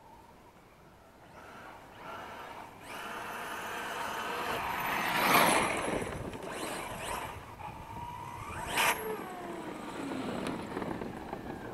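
Brushless-converted Losi Mini WRC RC rally car racing over a dirt trail toward the microphone and sliding to a stop, its electric motor and gears whining up and down with the throttle over the hiss of its tyres spraying dirt. The noise swells to its loudest about five seconds in, a sharp rising whine comes near nine seconds, and the whine then falls away as the car slows.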